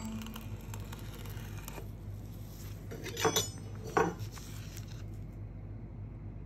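Dry nori sheets crackling as they are handled and pressed by fingers, with two sharp crackles about three and four seconds in, over a low steady hum.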